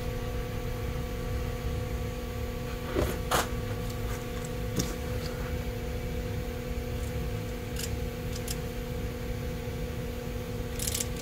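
Steady electrical hum with a low rumble underneath, broken by a few light clicks and taps from handling small parts.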